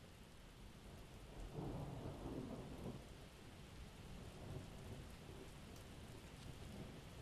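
Steady rain with a low roll of thunder that swells about a second and a half in and fades out over the next couple of seconds.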